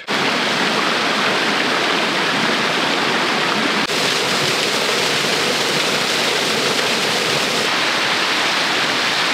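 Steady rush of a small waterfall and a rocky forest stream running full after rain. The sound shifts slightly about four seconds in and again a little before eight seconds.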